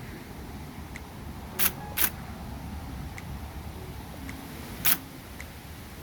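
Electric typewriter, just switched on, with a steady low hum and three sharp key clacks: two close together about a second and a half in, one more near five seconds.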